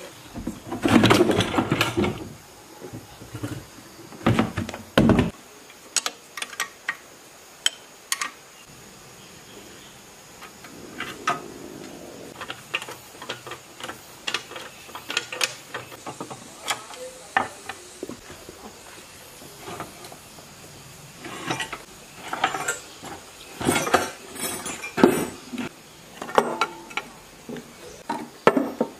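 A heavy metal engine-and-pump unit is set down and shifted on a wooden table, with loud thuds in the first few seconds. Scattered clinks and knocks of metal parts and wrenches being handled follow.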